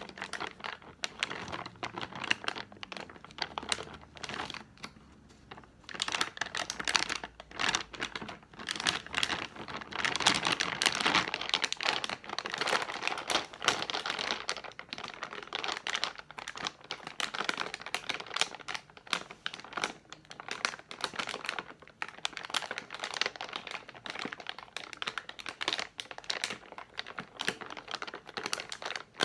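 Candy packaging being crinkled and crumpled by hand: a dense, continuous crackling that dips into a brief lull about four seconds in, then grows louder again.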